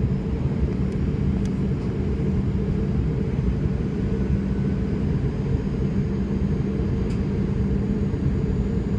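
Airliner cabin noise heard from a window seat in flight: a steady low rumble of engines and airflow with a constant low hum.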